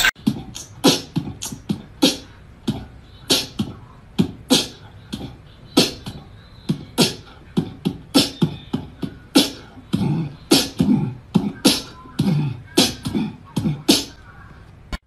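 A run of sharp clicks, many paired with a low thump, about two to three a second in an uneven rhythm, stopping suddenly near the end.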